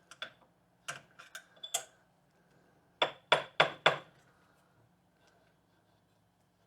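Light metallic clinks of tools on metal, then four sharp metal knocks in quick succession, about three a second, as a wheel stuck on a bench grinder's arbor is tapped to free it.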